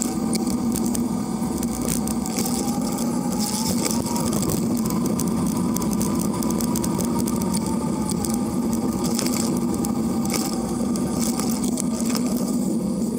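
Steady rolling noise of a bicycle ridden on asphalt, picked up close to its knobby front tyre: a constant rumble with a faint hum that drifts slightly up and down with speed, and scattered small clicks and rattles.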